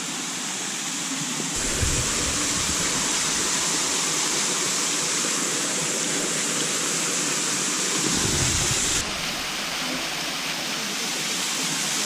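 Small waterfall splashing down a rock face: a steady rush of falling water, with brief low rumbles about two seconds in and again around eight seconds.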